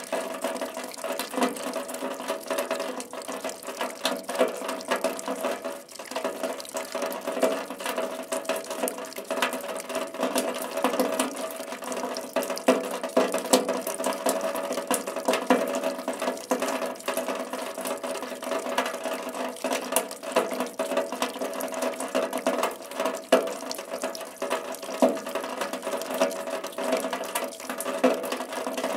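Rain falling: a steady, dense run of irregular drop impacts, with the odd louder drop standing out.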